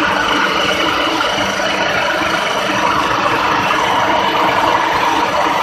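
Pulping machine churning bamboo pulp in a paper mill: loud, steady mechanical running noise with a few steady tones over it and no breaks.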